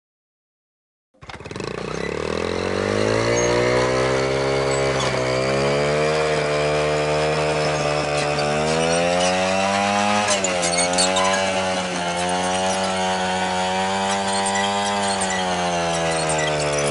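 Small motorcycle engine bursting into life about a second in and revving up, then running hard at high revs, with a brief dip and recovery around the middle, its rear tyre driving a playground merry-go-round round.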